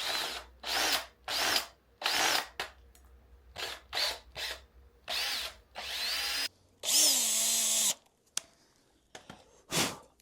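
Power drill run in short trigger bursts, the motor speeding up and slowing down each time, then a longer run of about a second near the end: drilling a hole to fit a motorcycle turn signal.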